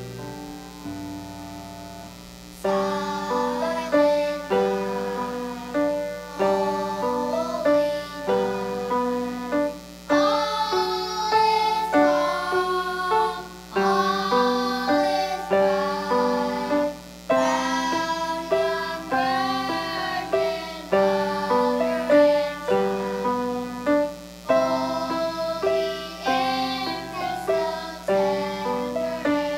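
Children singing a song with piano accompaniment. The piano plays alone at first, and the voices come in about three seconds in.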